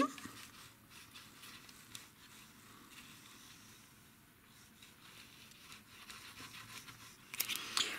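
Faint rustling and light ticks of hands handling a folded paper box while the tip of a liquid-glue bottle is dabbed into its corners, with a few louder rustles and clicks near the end.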